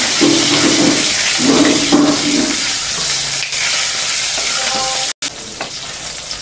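Cumin, chopped green chilli and curry leaves sizzling in hot oil in a non-stick kadai, stirred with a spatula that scrapes the pan. The sizzle cuts out abruptly about five seconds in and comes back quieter.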